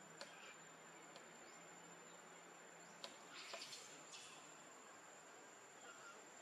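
Near silence: faint outdoor ambience with a thin, steady, high insect drone. A few short chirps and ticks come about three to four seconds in.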